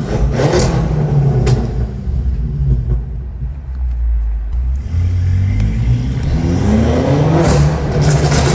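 BMW F10 M5 Competition's tuned twin-turbo V8 running loud under load, with a few sharp exhaust cracks in the first couple of seconds. From about five and a half seconds in, the revs climb steadily as it accelerates.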